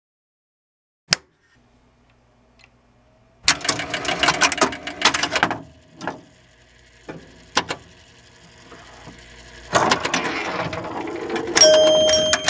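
A toggle switch clicks once. Then an electromechanical pinball machine's relays, stepper units and score reels clatter in dense bursts, with a few single clicks between them. Music starts near the end.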